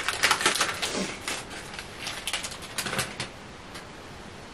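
Plastic snack packaging being handled, a quick run of sharp crinkles and crackles that stops about three seconds in.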